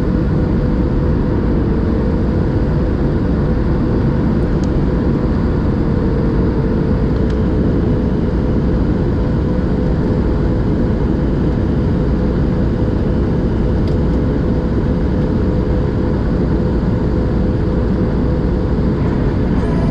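Steady cabin noise inside a Boeing 737-700 on final approach: the engines and the airflow over the fuselage make an even rumble, with a faint steady hum on top.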